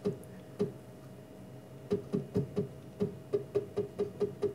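CNC mill's Z-axis drive jogged in short single steps, each move a brief pitched blip. The blips come in quick runs from about two seconds in, stepping the slide a thousandth at a time for a backlash check, over a faint steady hum.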